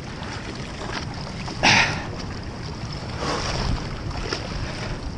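Steady low rush of wind and water buffeting the microphone, broken by a short loud rushing burst about a second and a half in and a softer one around three seconds in.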